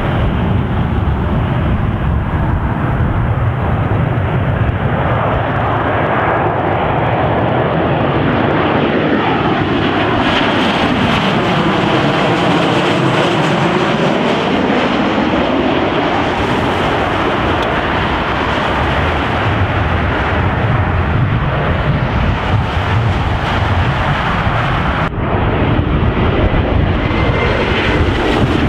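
Boeing 737 airliner on landing approach passing low overhead with its gear down: a steady jet engine rumble and rush that swirls down and back up in pitch as it goes over. About 25 s in, a cut brings in the similar engine noise of an Embraer E190 on approach.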